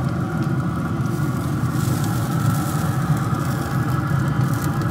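Steady low mechanical hum of an engine or motor running at a constant speed, with a faint hiss about two seconds in.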